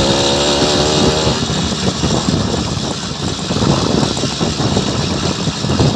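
Motorized bicycle's small engine running while riding, with a steady engine tone in the first second or so that then sinks into the noise. After that comes a dense rattling clatter of knocks and vibration from riding over potholed pavement, mixed with wind on the microphone.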